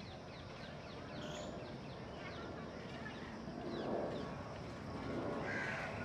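Wild birds calling outdoors: many quick, high chirps repeat throughout, with a louder harsh call about four seconds in and another near the end.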